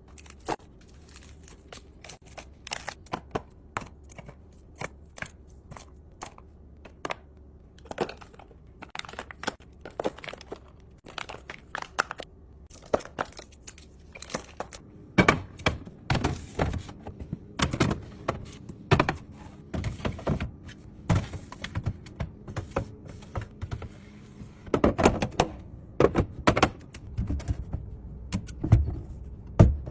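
Irregular knocks, taps and clicks of drinks and food containers being set down and arranged in a fridge, getting busier and louder in the second half, with a few short rustling stretches.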